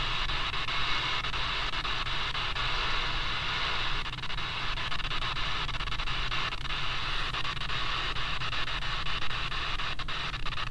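Steady hiss and static from a QFX R-35 pocket radio's small speaker as it is tuned across the shortwave band, with a low hum underneath and occasional faint crackles.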